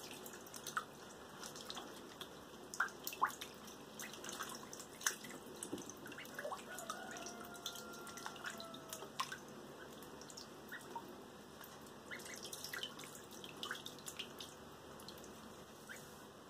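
Ducklings paddling and dabbling in a tub of shallow water: scattered small splashes and drips from their bills and feet, over a faint steady lapping of water.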